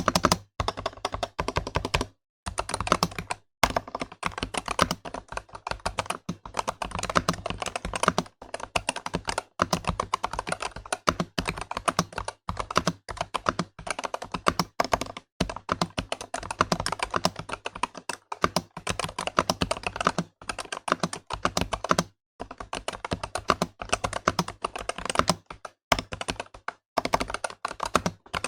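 Continuous fast typing on a mechanical keyboard: a dense stream of key clacks, broken by a few short pauses.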